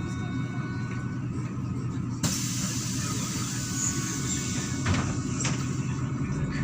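MAZ-103 city bus heard from inside: the engine runs with a steady low hum, and about two seconds in a sudden air hiss from the bus's pneumatic system starts and carries on. Two short clunks come near the end.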